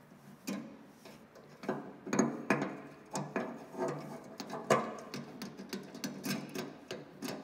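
Glass sediment bowl of a John Deere 720 diesel's fuel system being fitted by hand into its wire bail and snugged up with the thumb screw: a run of irregular metal-and-glass clicks and scrapes beginning about half a second in.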